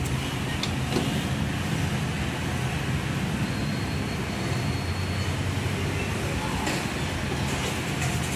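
Kymco KRV 180 scooter engine idling steadily after its fuel injector and throttle body cleaning, with a few light clicks.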